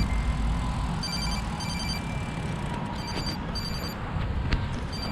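High-pitched electronic beeping: pairs of short beeps repeating about every two seconds, over steady wind and road noise on the microphone.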